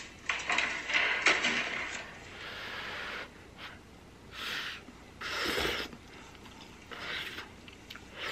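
Close-up eating sounds from a spoonful of hot soft tofu stew with noodles: several short breathy puffs and slurps, each lasting under a second.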